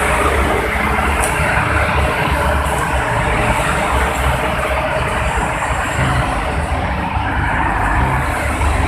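Steady noise of busy toll-road traffic passing below: cars and trucks, their tyres and engines blending together over a deep rumble.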